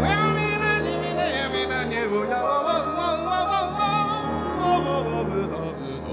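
Male vocalist singing with a jazz big band, his voice sliding between notes over sustained band chords and a steady bass; the sound eases off near the end.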